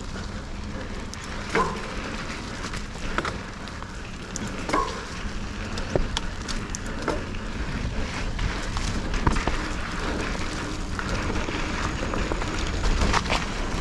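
Specialized Stumpjumper Evo Pro mountain bike ridden along a dirt trail: a steady rolling, rushing noise with scattered sharp clicks and knocks from the bike every second or two.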